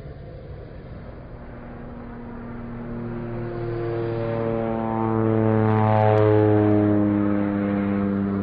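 Propeller airplane flying overhead. Its engine drone grows steadily louder as it approaches, peaks about two-thirds of the way in, then drops slightly in pitch as it passes.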